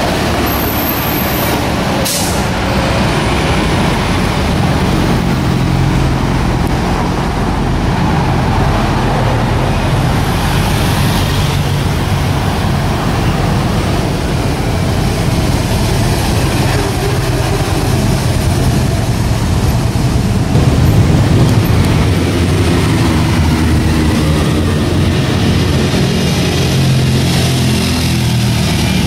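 Motorcycle engines running loud as bikes ride past one after another, the engine pitch rising and falling as they pass and rev.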